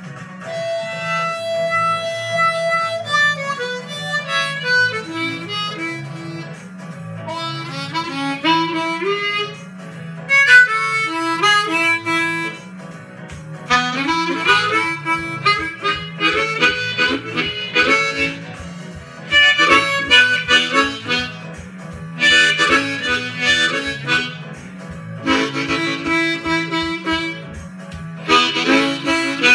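Harmonica cupped in both hands against a microphone, playing a boogie woogie blues riff in repeated phrases that grow louder and busier about halfway through. A low accompaniment runs underneath, and a regular low beat joins about halfway.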